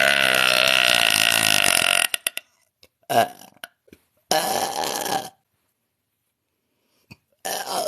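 A woman belching repeatedly. A long, loud burp that has already begun runs through the first two seconds. It is followed by a short burp and then a second-long one, and after a silence of about two seconds another starts near the end.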